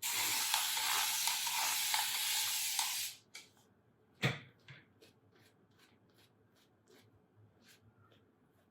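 Water running in a steady hiss for about three seconds, adding a little more water to the shaving lather, then cutting off. A single knock follows, then a few faint light taps.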